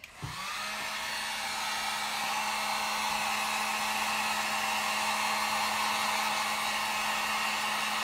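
Handheld hot-air blower switching on right at the start and running steadily: a rush of air over an even electric hum. It is drying freshly brushed clear-coat sealer on a painted wooden knob.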